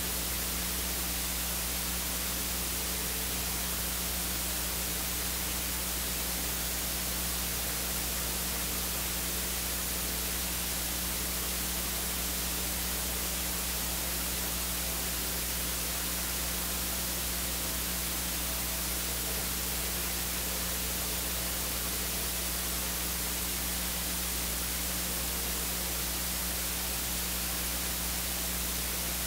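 Steady electrical hiss with a low, even hum from the sound feed, unchanging throughout; no singing or organ comes through.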